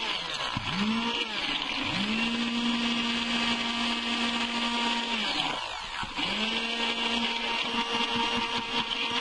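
Stick blender mixing titanium dioxide into a small batch of soap batter, pulsed on and off. Its motor hum drops away and spins back up three times, with the longest pause about five seconds in.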